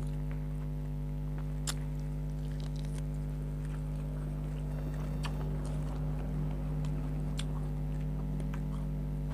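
Someone chewing food close to the microphone: scattered small wet clicks and smacks of the mouth, over a steady electrical hum.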